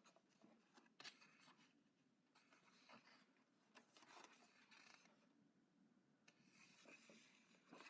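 Near silence with faint, brief rustles of paper pages being handled and turned, a few soft scrapes spread through it.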